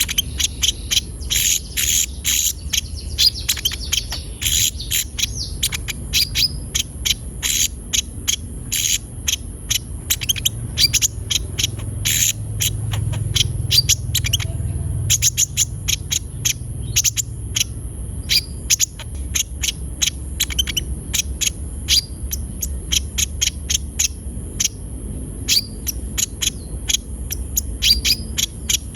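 Konin (sunbird) singing hard, a rapid chattering run of sharp high notes that keeps going without a break, over a steady high-pitched buzz.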